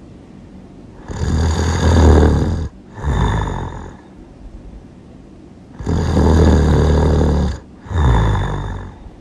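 A person snoring loudly: two snores about five seconds apart, each a long snore followed straight away by a shorter one.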